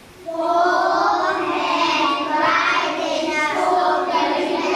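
A group of young children singing together in unison, with long held notes; the singing comes in a moment after a short break at the start.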